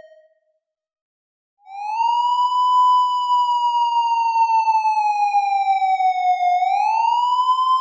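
Police siren sounding a slow wail. A tone fades out at the start, and after a short silence a new tone comes in about a second and a half later, rises, falls slowly over several seconds, then rises again near the end.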